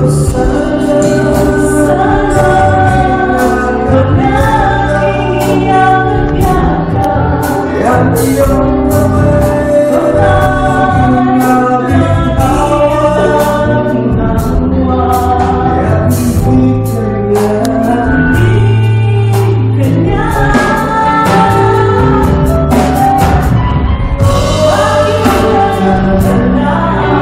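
Live band playing a Filipino pop ballad while a male and female singer sing together into microphones, their voices in harmony over bass and a steady drum beat.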